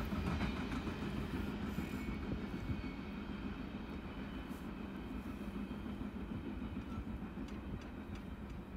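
Freight train of covered hopper cars rolling away along the track: a steady low rumble of wheels on rail that fades as the last cars pull off into the distance.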